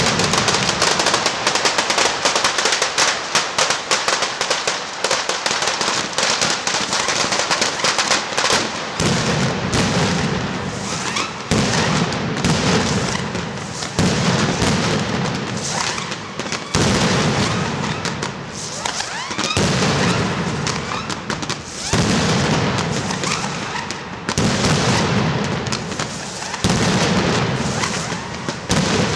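Mascletà: strings of firecrackers going off in a rapid, unbroken crackle of sharp bangs. About nine seconds in, waves of heavier, deeper bangs join in, surging every two to three seconds.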